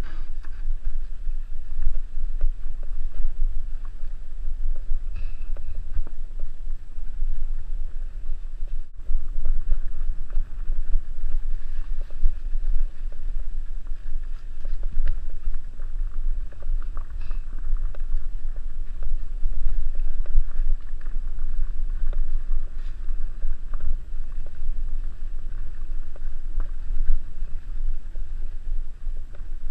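Salsa Mukluk fat bike riding a leaf-covered dirt trail, heard from a camera mounted on the handlebars: a steady heavy low rumble of ride vibration and wind on the microphone, with the fat tyres rolling over and crackling through dry leaves.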